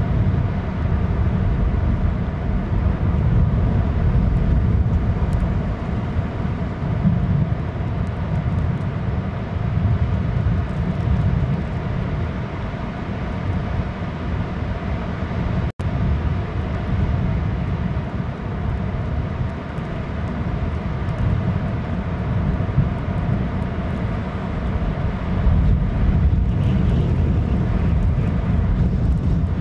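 Strong wind buffeting an outdoor camera microphone: a loud, steady low rumble that swells and eases, with the sound cutting out for an instant about halfway through.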